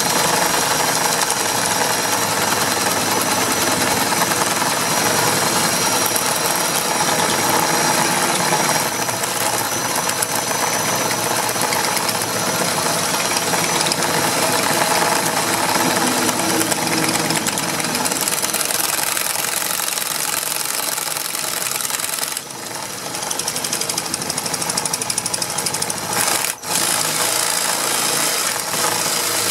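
Impact wrench running with its hammer mechanism rattling continuously, with a brief let-up about two-thirds of the way through and a short sharp break near the end.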